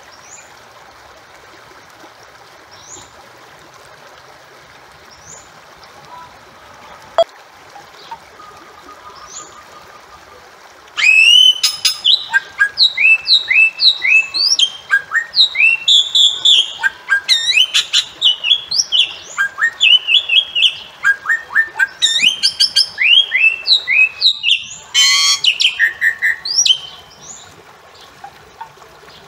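Bali myna calling: after a quiet stretch, a long run of loud, short rising whistled notes, several a second, starts about a third of the way in and goes on for some fifteen seconds, over a steady background hiss.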